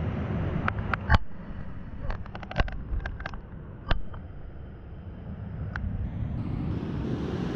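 Shallow rocky stream running, a steady low rush of water, broken by a few sharp clicks and small splashes as a small brown trout is held in the current and released.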